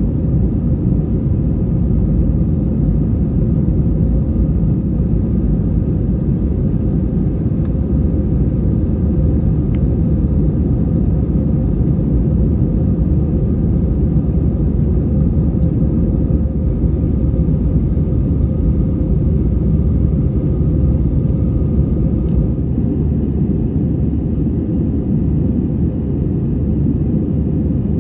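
Airbus A320 cabin noise in flight: a loud, steady jet-engine rush and hum heard from a window seat. A faint high whine rides on top and steps up in pitch twice.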